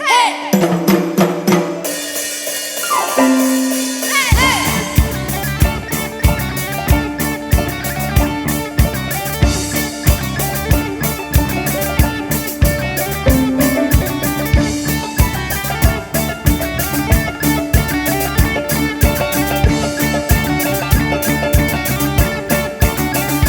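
Ensemble music: pitched melodic instruments with gliding notes open, and about four seconds in a steady, driving drum beat with deep bass-drum hits enters under sustained melody lines.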